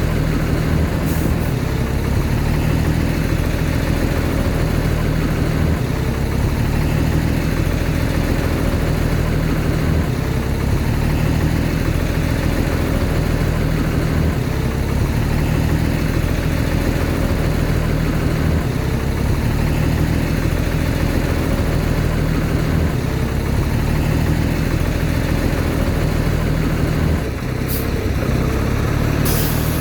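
Heavy diesel earthmoving machinery running steadily at a low, even engine note, with a few short clicks near the end.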